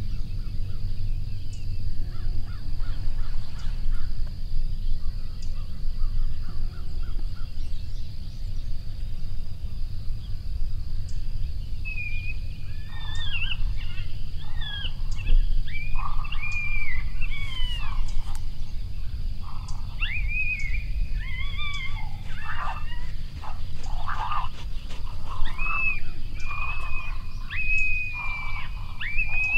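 Coyote yips and howls: a run of high, wavering cries that rise and fall, starting about twelve seconds in and growing denser. A steady low rumble lies under them.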